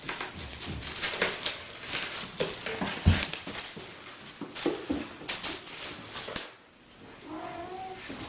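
A cat playing with a toy mouse with foil streamers on a string: rapid rustling and crinkling mixed with paws scrabbling and thumping on a wooden floor, with one heavier thump about three seconds in. After a brief lull near the end comes a short pitched call.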